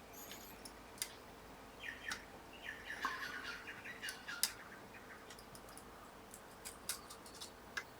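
Faint soldering work on a switch's pins: scattered small clicks and ticks, with a cluster of short high chirps about two to four seconds in.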